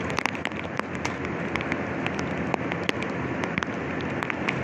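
Rain pattering on plastic sheeting and metal grating: a steady hiss with many irregular sharp drop hits, over a faint steady low machinery hum.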